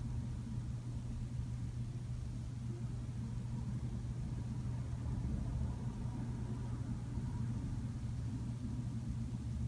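A steady low hum with a rumble beneath it and a faint higher tone, unchanging throughout.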